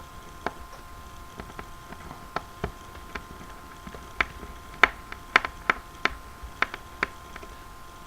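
Small sharp clicks of a Phillips screwdriver working the tiny case screws out of a Samsung Galaxy Ace's plastic housing, about a dozen at irregular intervals, the loudest a little under five seconds in.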